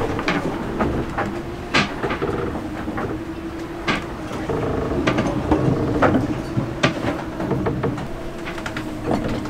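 Loose gear and cupboard doors knocking and clattering at irregular intervals inside a sailing yacht's cabin as the boat rolls in waves.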